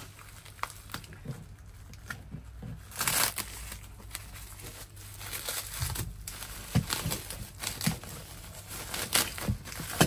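Plastic bubble wrap crinkling and rustling as hands pull it out of a cardboard box, with irregular crackles. There is a louder burst about three seconds in and several sharp crackles later on.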